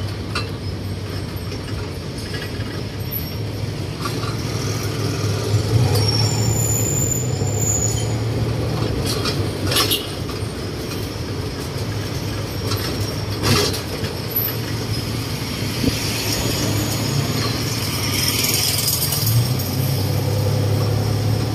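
Songthaew pickup-truck shared taxi on the move, heard from its open rear passenger bed: a steady low engine hum with road and traffic noise and a few short rattles.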